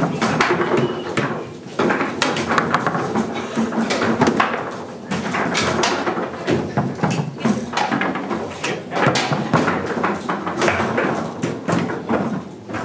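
Table football in play: the ball is struck and knocked about by the plastic figures, with rods clacking and sliding in an irregular run of sharp knocks.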